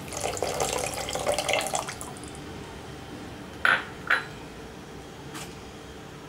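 Tamarind water being poured into a pot of sambar, splashing for about two seconds, then two sharp clinks about half a second apart.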